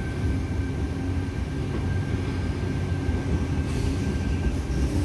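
Sydney Trains Tangara double-deck electric train running past along the platform: a steady low rumble of wheels on rails with a thin high whine that fades out about three and a half seconds in.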